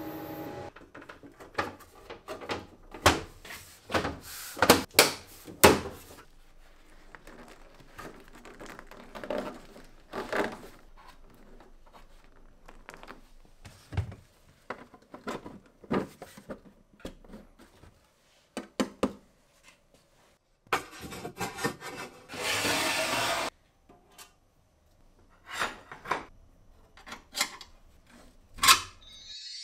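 A run of separate knocks, thunks and rubbing of hard parts being handled and fitted, the loudest knocks clustered a few seconds in, with a couple of seconds of steady rushing noise about two-thirds of the way through.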